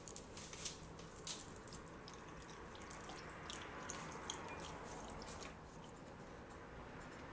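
Faint, scattered light clicks and taps of a plate and utensils being handled on a kitchen counter.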